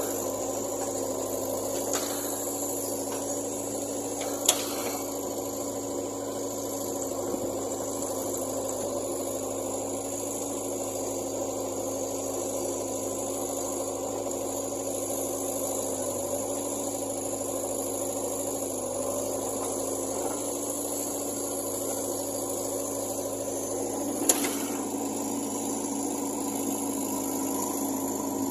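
Backhoe loader's diesel engine running at a steady speed, with a few short sharp knocks, one about four seconds in and a louder one near the end.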